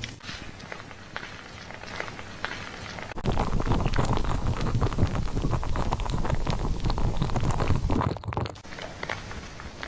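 Hands scrubbing a head of hair during a shampoo, with a soft crackling, then about three seconds in water sprays from a shower head over the hair for about five seconds and cuts off sharply.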